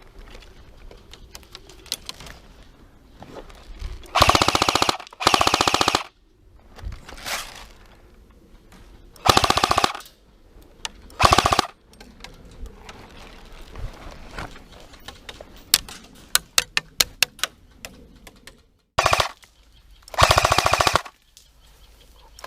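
Airsoft guns firing in rapid full-auto bursts: two bursts back to back about four seconds in, more around nine and eleven seconds, a string of quick separate shots around sixteen seconds, and a last long burst near the end.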